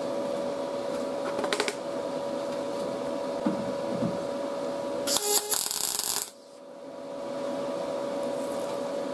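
YesWelder MIG 205DS MIG welder arc crackling in one burst of about a second, a little past the middle, as a tack weld is laid on the edge of a thin sheet-metal patch panel. A much shorter crackle comes about a second and a half in.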